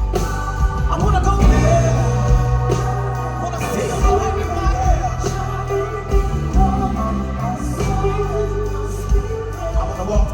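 Live soul-rock band playing a passage without lyrics: held keyboard chords over a steady bass line, with drum hits throughout.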